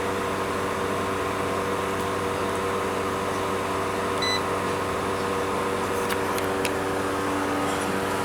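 Steady hum of running machinery with several held tones. About four seconds in comes a single short beep from the digital multimeter, and a few light clicks follow around six seconds.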